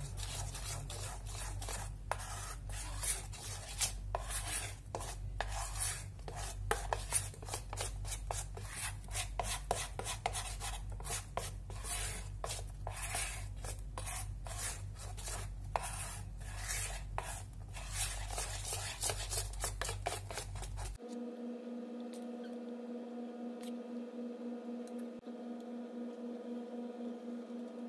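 Metal spoon stirring and scraping thick cake batter in a stainless steel bowl, a busy run of quick scrapes and clicks against the metal. About 21 seconds in, the sound cuts abruptly to a steady low hum with faint ticks.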